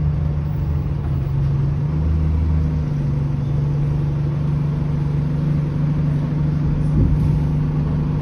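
Alexander Dennis Enviro200 single-deck bus's diesel engine running steadily, heard inside the passenger saloon as a continuous low hum with a rumble under it.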